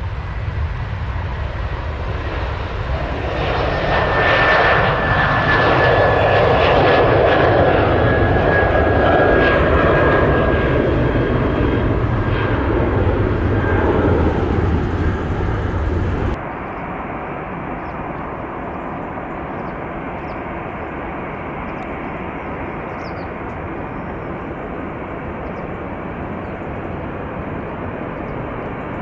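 Jet airliner engines passing close: the noise swells with a high whine that falls slightly in pitch. About halfway through, the sound cuts suddenly to a quieter, steady engine rumble.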